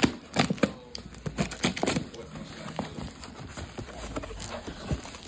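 Cardboard box being opened by hand: a quick run of crackles and snaps as the flaps are pulled apart in the first two seconds, then softer scattered rustling and knocks of cardboard being handled.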